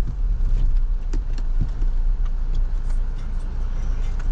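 Toyota Innova Crysta driving: a steady low rumble of engine and road noise, with scattered light ticks.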